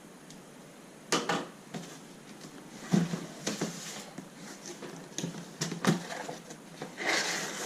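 Cardboard box and its contents being handled and opened: scattered knocks and scrapes, then a denser rustle of packaging near the end.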